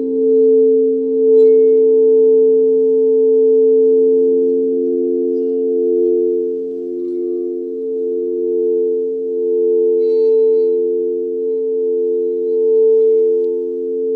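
Several alchemy crystal singing bowls sounding together in long sustained tones, their overlapping pitches pulsing slowly as they beat against each other.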